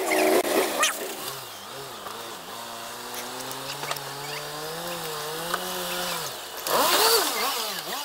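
Rock crawler's engine held at revs under load as it climbs, its pitch slowly rising for several seconds before dropping off about six seconds in; a louder, wavering burst of sound follows near the end.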